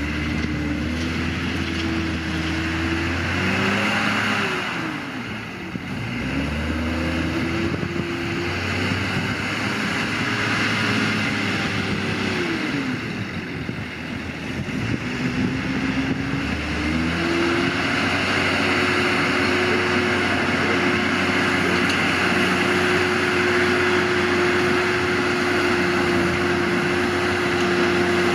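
New Holland T7050 tractor's diesel engine pulling a Kaweco loader wagon: the revs rise and fall twice, dip, then climb at about two-thirds of the way through and hold steady and high as the wagon picks up the grass swath.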